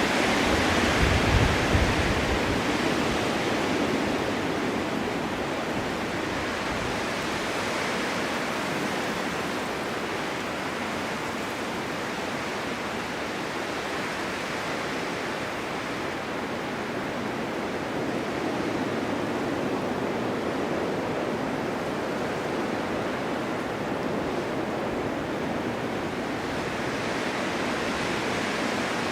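Blizzard wind blowing snow: a steady rushing noise that swells and eases in slow gusts, strongest about a second in with a brief low rumble.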